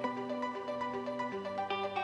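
Background music: a light melody of short held notes over a sustained lower note that shifts pitch about two-thirds of the way through.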